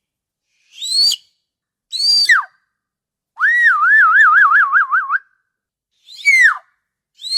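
Killer whale (orca) calls: a string of short whistle-like calls that rise and then sweep sharply down in pitch, with a longer call in the middle that warbles rapidly up and down. The calls are separated by dead-silent gaps.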